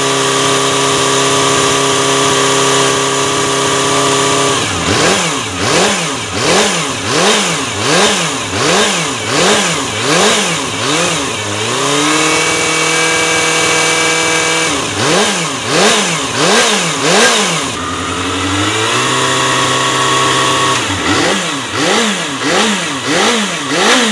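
Kawasaki ZXR250's 250 cc inline-four engine running on its stand and being revved: held steady at high revs for the first few seconds, then blipped up and down in quick succession, a little more than once a second, with two more spells of steady revs in between. This is light revving that already reaches about 8,000 rpm.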